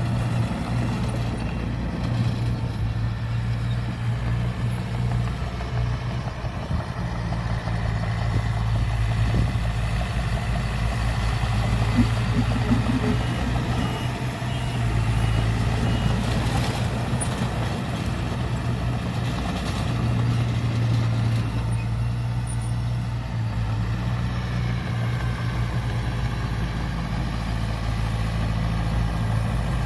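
Heavy diesel construction machinery running steadily at a worksite. About halfway through come four short, faint high beeps, like a reversing alarm.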